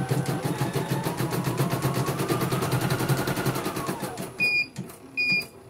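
CNY portable embroidery machine stitching rapidly with an even needle clatter. Its whine rises and then falls as it slows and stops about four seconds in. Then it beeps twice.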